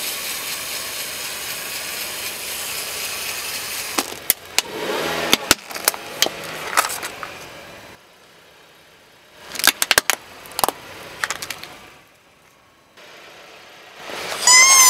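A car tyre rolling over plastic toys: the car running steadily at first, then a series of sharp plastic cracks and snaps as the toys break under the wheel. Near the end a soft rubber pig toy gives a loud squeak as the tyre flattens it.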